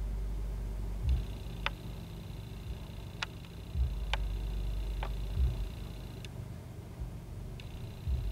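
Intermittent low roar of a parked car's subwoofers playing bass-heavy music, a deep steady rumble that swells louder about every second and a half.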